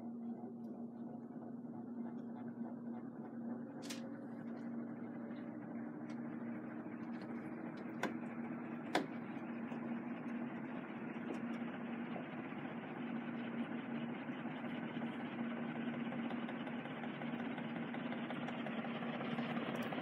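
CanArm CP36P industrial ceiling fan running: a steady motor hum under a rush of air from the blades that grows gradually stronger and brighter. A few faint clicks in the first half.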